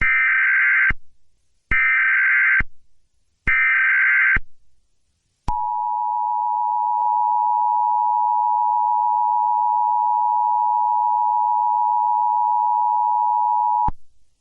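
Emergency Alert System tones: three short buzzy bursts of SAME header data, each just under a second, then the steady two-tone EAS attention signal for about eight seconds, cutting off abruptly. The tones open an Amber Alert.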